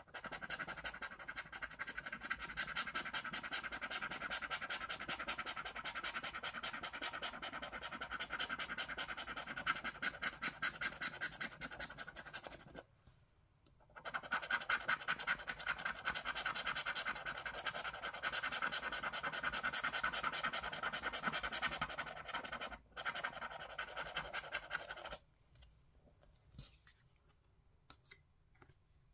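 A plastic scratching tool scrapes the scratch-off coating from a paper lottery scratch card in rapid back-and-forth strokes. It pauses for about a second near the middle and again briefly later, and stops a few seconds before the end. Faint handling clicks follow.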